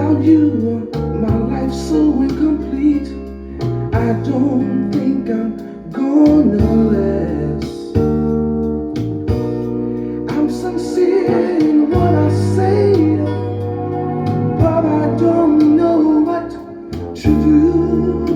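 Music: a song with guitar, sustained bass notes and a wavering, sliding lead melody.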